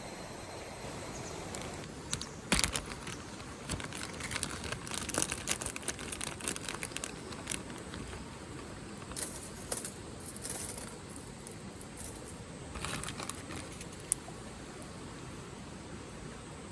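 Irregular crinkling and rustling with scattered sharp clicks, in two stretches, over a steady background hiss, with one sharp click near the end.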